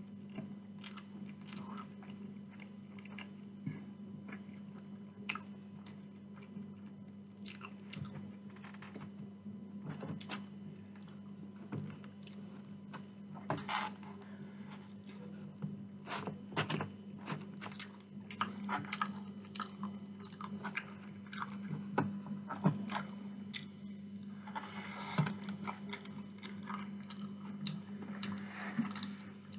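Close-miked chewing and biting of sauce-covered chips, with many small wet mouth clicks and smacks. A steady low hum runs underneath.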